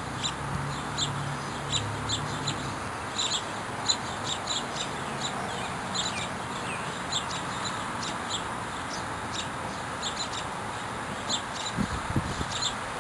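Small birds chirping at a feeder: many short, sharp chirps, irregular and overlapping, over a steady background hiss.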